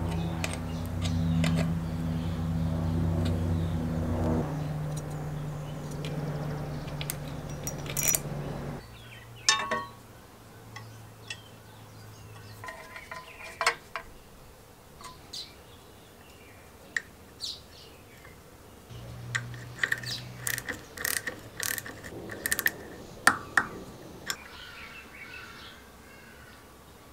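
Hand-tool work on metal mower parts. A steady low machine hum runs for about the first nine seconds. Then come scattered sharp metallic clicks and taps of a spanner and bolts, with faint bird chirps.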